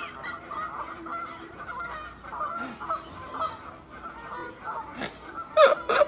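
Many short honking bird calls, one after another, like a flock of geese, with a louder, lower cry about five and a half seconds in.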